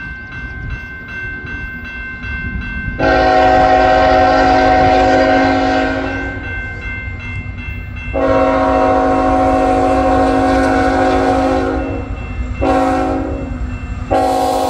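Canadian National freight train's locomotive horn sounding the grade-crossing signal: two long blasts, a short one and a final long one starting near the end, over the rumble of the approaching diesel locomotives.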